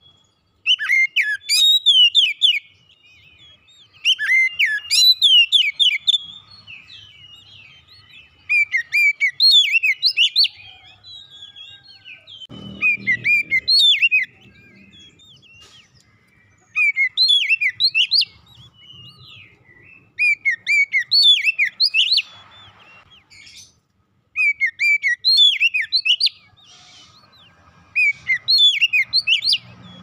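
Oriental magpie-robin singing: about eight loud bursts of rapid, varied whistled phrases and trills, each a couple of seconds long, with short pauses between them.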